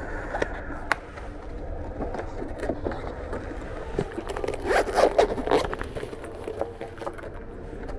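Zipper of a hard-shell TROIKA organizer case being pulled, along with handling scrapes and small clicks. The loudest stretch of scratchy zipping comes about halfway through.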